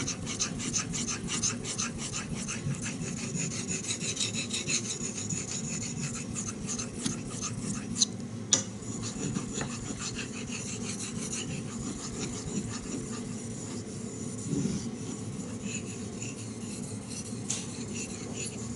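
A 3V-steel knife blade stroked back and forth on a wet Shapton #5000 water stone worked with nagura slurry: a steady rhythmic scraping rasp, a few strokes a second. Two short clicks come about eight seconds in.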